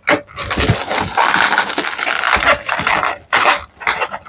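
Latex modelling balloons squeaking and rubbing against each other as they are bent and twisted together into a frame, a dense run of squeaks with short breaks.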